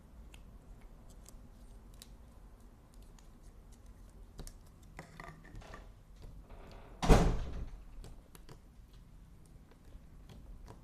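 Slime being stretched and squeezed by hand, faint sticky clicks and squelches. About seven seconds in comes one loud thump that dies away in under a second.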